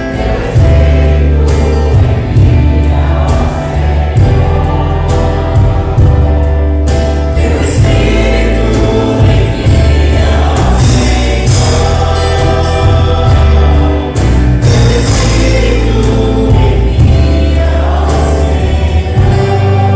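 Choir singing a gospel worship song over a full band, with a strong bass line and a steady drum beat.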